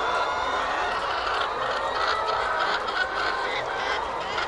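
A large flock of brown laying hens in wire battery cages, many clucking and calling at once in a steady, overlapping chorus.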